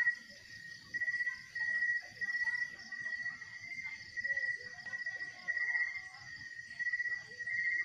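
Night insects calling: short buzzy trills repeated about once a second, over a steady high-pitched insect chorus.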